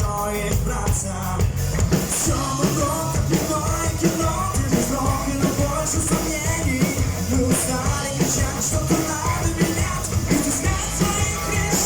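Rock band playing live, with a singer's voice over a steady drum beat and dense bass.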